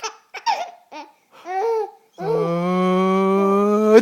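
A baby's short laughs, then about two seconds in a person draws out a long, steady 'aaah' that builds up to a sneeze, which bursts out at the very end.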